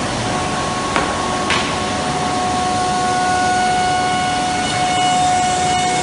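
Cosmec Conquest 715 flat-table CNC router running: a steady machine noise with a high whine. Two short clicks come about a second and a second and a half in.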